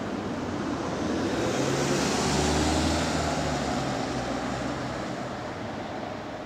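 A train running past: a rushing noise with a low hum that swells to a peak about two and a half seconds in and then fades.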